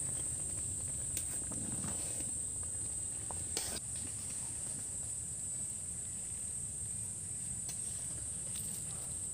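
Insects chirring in one steady high-pitched note, with a low rumble beneath and a few faint clicks.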